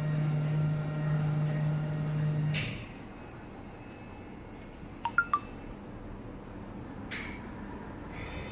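Vending machine's product elevator motor humming steadily, then stopping with a clunk about two and a half seconds in. A few quick clinks follow about five seconds in, and single knocks come a little before the end and right at the end.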